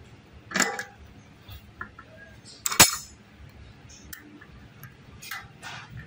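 Metal tools clinking and scraping on a bicycle's 8-speed freewheel as it is being taken off the wheel with a freewheel removal tool, with one sharp metallic knock near the middle.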